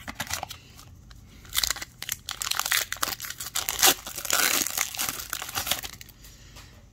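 Shiny foil wrapper of an Upper Deck hockey card pack being crinkled and torn open by hand, a crackling rustle lasting a few seconds and loudest about four seconds in.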